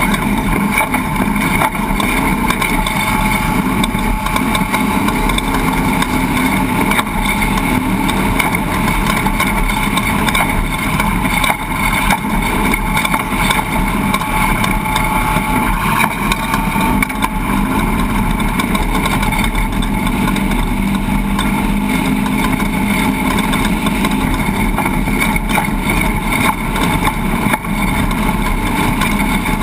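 A steady running engine.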